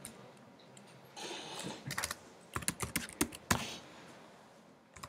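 Typing on a computer keyboard: scattered keystrokes, with a quick run of clicks about two and a half to three and a half seconds in.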